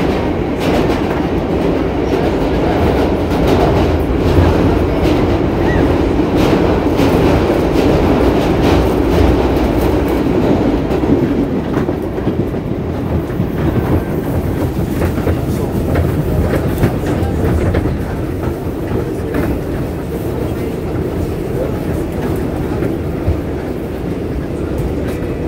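R142A subway car running along the track: a steady rumble with the clicking of its wheels over rail joints.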